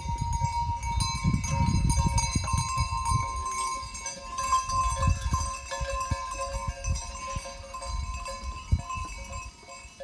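Bells on a moving flock of sheep jingling and clanking together, a dense ringing that goes on throughout, over a low, uneven rumble.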